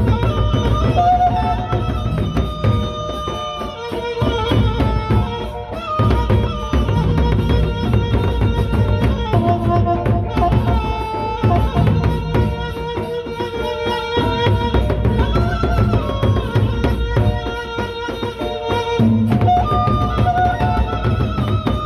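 Gendang beleq ensemble playing: large Sasak barrel drums beaten with sticks in a fast, steady rhythm, with metallic percussion crashing over them and held melodic notes above. The music eases briefly twice before picking up again.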